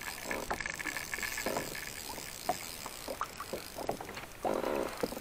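Water lapping and slapping against a plastic kayak hull, with scattered small knocks and clicks from the boat and fishing gear.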